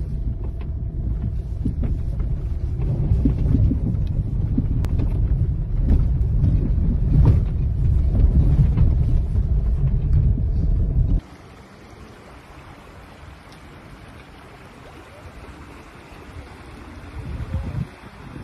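Low rumble of a Hyundai i20 driving over a rough gravel riverbed, heard from inside the cabin, with faint rattles. It cuts off suddenly about eleven seconds in to the quieter, even rush of a shallow river flowing over stones.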